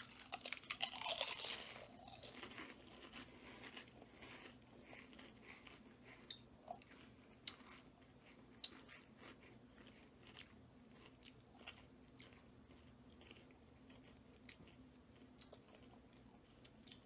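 Two people crunching and chewing big mouthfuls of potato chips: loud crackling as they bite in for the first couple of seconds, then quieter chewing with scattered crunches.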